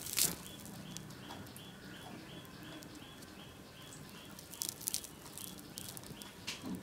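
A crisp deep-fried masala vadai crackling as it is broken apart by hand, loudest right at the start and again about five seconds in. Behind it a faint high chirp repeats about three times a second.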